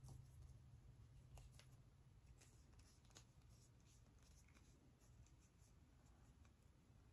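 Near silence with faint rustling and scattered soft ticks as hair is wound around a bendable foam flexi rod.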